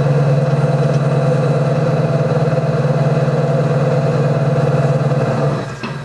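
Electric potter's wheel motor humming steadily as the wheel spins during trimming, dropping away about five and a half seconds in.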